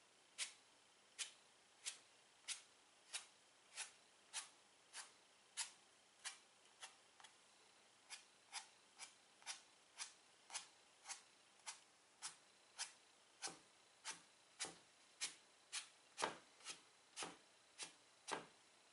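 White chalk on a chalkboard, drawn in quick short strokes, one after another at an even pace of roughly two a second, each a sharp little scratch.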